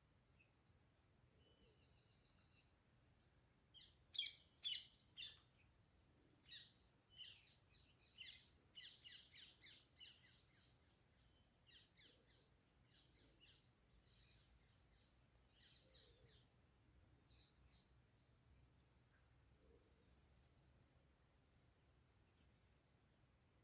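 Songbirds chirping and calling in short, scattered notes over a steady high-pitched drone. The loudest calls come about four seconds in, followed by a run of rapid chirps and then three quick clusters of short notes near the end.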